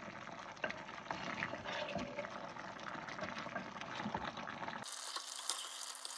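Wooden spoon stirring chunks of beef curry in a clay pot: wet squelching and bubbling of the meat and its juices, with light scrapes and taps of the spoon. About five seconds in it changes abruptly to a steadier hiss with a faint low hum.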